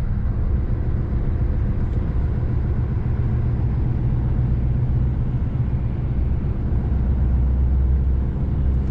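Lorry's diesel engine running steadily under way, a low drone heard from inside the cab.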